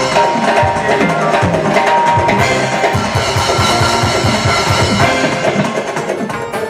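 Band music led by a drum kit played in a fast, dense run of strokes through the middle, over steady tones from the other instruments.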